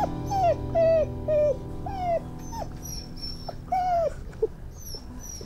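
Puppy whimpering in pain: a run of short, high cries, each falling in pitch, about two a second.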